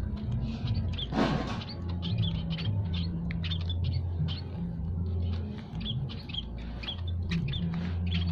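Munias (emprit) giving many short, high chirps at an irregular pace, over a low hum that comes and goes. About a second in there is a brief rush of noise.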